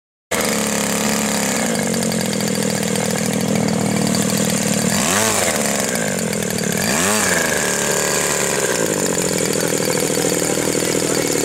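50cc model aircraft engine and propeller running steadily and loudly, cutting in a moment after a brief silence.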